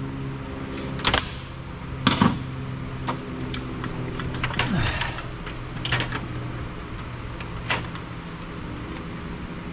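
Irregular clicks, knocks and rattles as a circuit card is pried and wiggled loose from its slot and connectors inside a copier's electronics bay, over a steady low hum.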